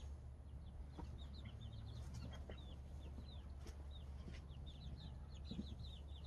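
A flock of chickens cheeping: many short, high, falling peeps in quick succession, faint, over a steady low hum.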